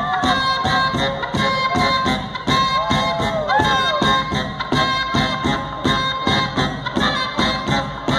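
Live brass house music from a trumpet, baritone saxophone and drum kit: a steady driving drum beat under a long held horn note, with a few bending horn notes about three seconds in.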